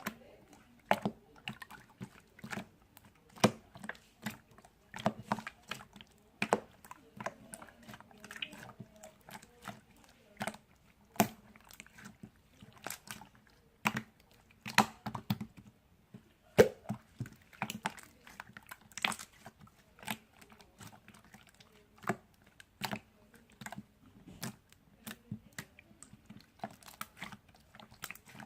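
Clear slime being pressed, poked and stretched by hand, giving irregular sticky clicks and pops, sometimes several in quick succession.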